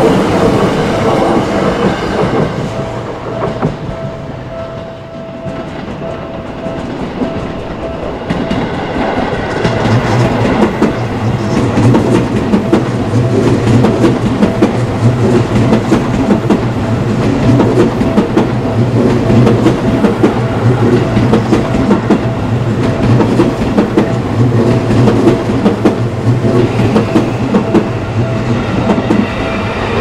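Electric commuter trains pass over a railway level crossing, their wheels clattering on the rails, while the crossing's warning bell keeps ringing. The train noise eases a few seconds in, then builds again as another train rumbles through from about ten seconds in.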